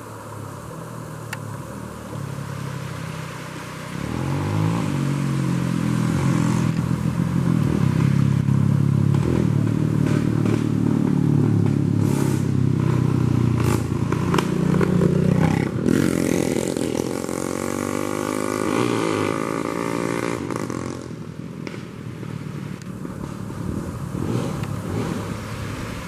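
A motor vehicle's engine comes in about four seconds in, loud and shifting in pitch, and fades down after about seventeen seconds. Under it, the steady rush of a shallow stream running over rocks.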